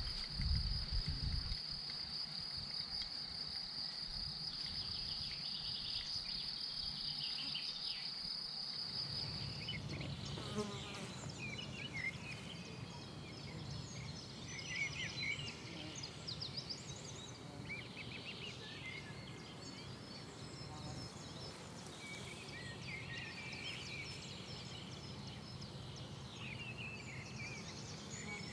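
Mountain meadow ambience: a steady high insect trill for about the first nine seconds, with a few low footstep thumps near the start. Then birds chirping over a steady low rumble.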